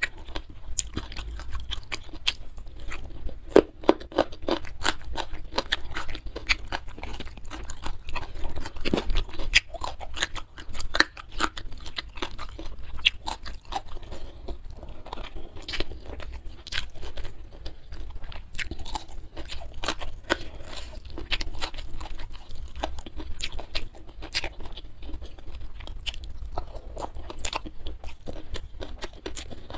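Close-up eating sounds of a person chewing and crunching food: a steady run of irregular, crisp crunches and wet chewing clicks.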